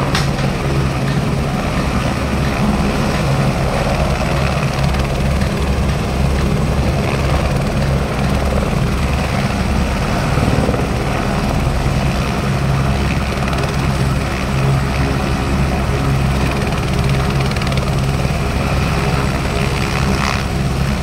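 Helicopter turbine engine and rotor running, a loud steady drone with a low beat.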